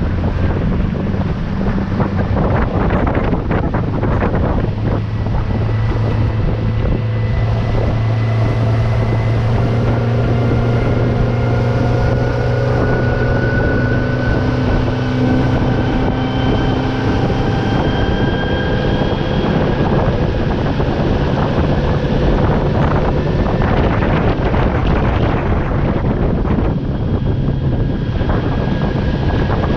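New Mercury 60 hp outboard motor running under way on its break-in run, its pitch climbing slowly through the middle as it gains revs, under heavy wind noise on the microphone.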